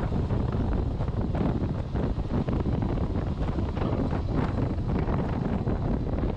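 Wind buffeting a camera microphone on a moving motorcycle: a loud, steady rumbling rush with uneven gusts.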